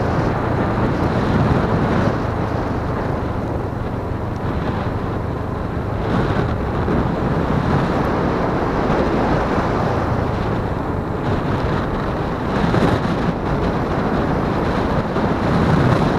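Motorcycle engine running steadily while riding, under heavy wind buffeting on the microphone.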